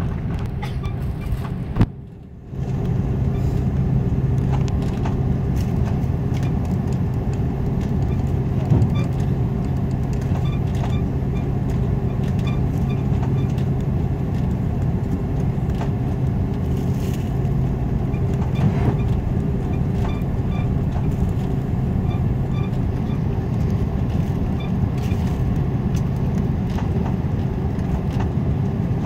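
Cabin noise inside an Airbus A330 taxiing: a steady hum of the engines at low power and the cabin air system, with a steady low tone and scattered light knocks and rattles. Near two seconds in, a short knock is followed by a sharp dip in the sound for about half a second.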